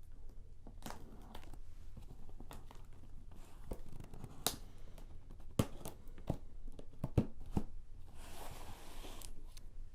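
Hands handling and opening an old cardboard shipping box: scattered taps and knocks against the cardboard, then a tearing sound lasting about a second, a little past eight seconds in.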